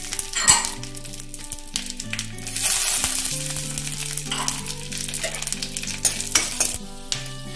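Cashew pieces and coconut slices sizzling as they fry in hot ghee in an aluminium kadai. Near the end a metal spoon goes in and scrapes and clicks against the pan.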